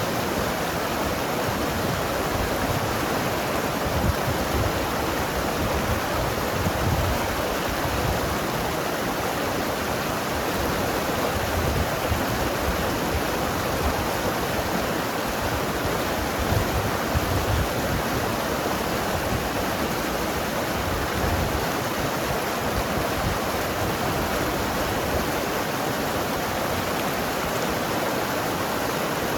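Mountain river flowing and gurgling over rocks: a steady rush of water, with small swells of low rumble now and then.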